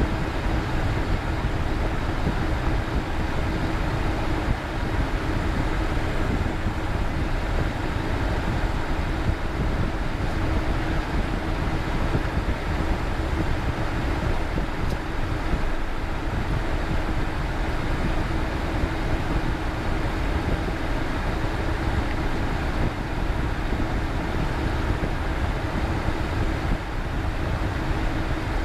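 Cockpit noise of a Cessna Citation Bravo taxiing with its twin Pratt & Whitney PW530A turbofans near idle: a steady rumbling drone with a constant hum running through it.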